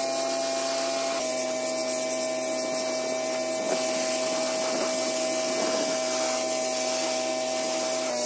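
Honda-powered Mi-T-M gas pressure washer running steadily with the hiss of its water jet. The engine's pitch dips a little about a second in and again near the end.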